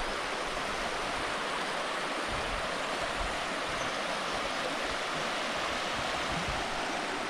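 Fast-flowing stream water rushing steadily, an even hiss of white water.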